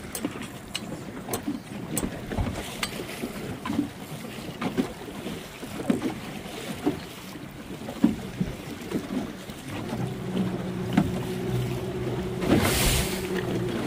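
Small motorboat's hull slapping through choppy waves, with wind buffeting the microphone. From about ten seconds in a steady low engine hum from its outboard joins, with a rush of wind or spray near the end.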